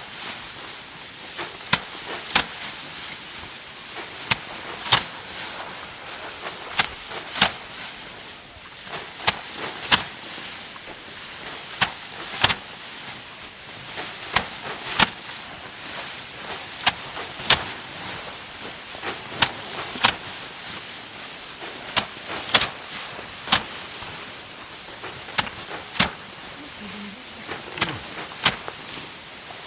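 Rice being harvested by hand: irregular sharp, crisp snaps of the stalks, roughly one to two a second, over a steady hiss.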